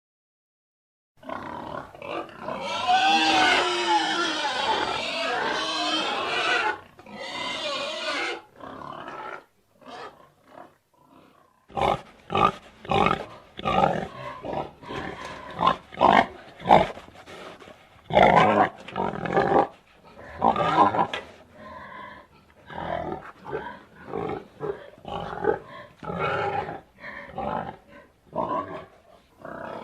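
Pigs squealing for several seconds, with wavering high-pitched cries. After a short pause comes a long run of short, separate grunts at about two a second.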